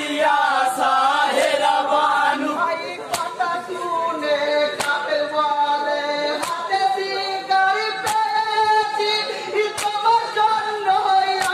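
A group of men singing a Bengali marsiya lament in unison, unaccompanied, with long held notes. A sharp percussive beat cuts through about every one and a half seconds, keeping time.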